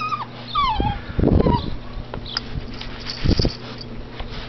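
Eight-week-old Thai Ridgeback puppies whining, several short calls falling in pitch in the first second and a half. Loud low thuds about a second in and again past three seconds.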